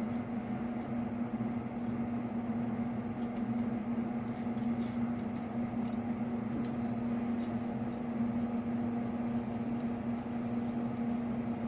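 A steady electrical hum with faint light ticks scattered through it.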